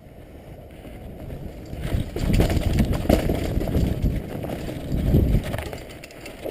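Mountain bike, its chain thrown, rattling and jolting down a rough dirt trail at speed, with wind buffeting the microphone. The noise builds about two seconds in and eases off near the end.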